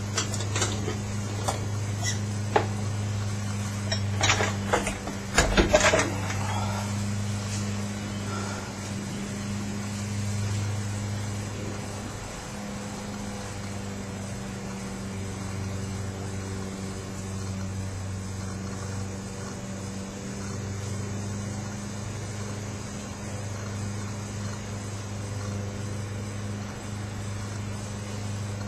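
Metal clanks and knocks of tools and parts being handled, over a steady low electrical-sounding hum. The clanks come in a cluster over the first six seconds, loudest about five to six seconds in, after which only the hum is left.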